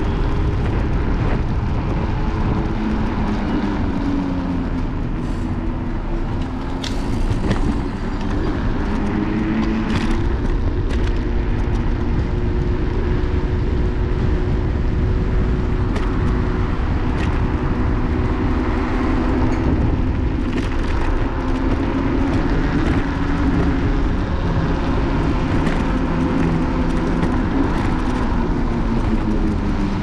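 Apollo Explore electric scooter riding along a city street, heard from a camera on its handlebars: steady road and wind rumble with a motor whine that slowly rises and falls in pitch with speed, and a few sharp knocks from bumps.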